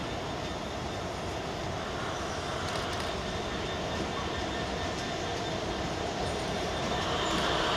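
Class 66 diesel-electric locomotive, with its EMD twelve-cylinder two-stroke engine, approaching at the head of a container freight train. It gives a steady running noise that grows louder about seven seconds in as it nears.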